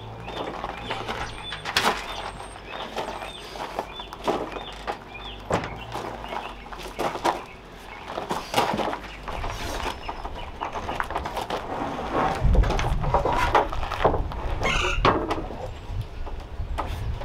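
Footsteps on gravel and irregular knocks and scrapes as a large solar panel is handled, set down on a wooden rack and slid into position. Small chirps sound in the first few seconds, and a low rumble comes in over the second half.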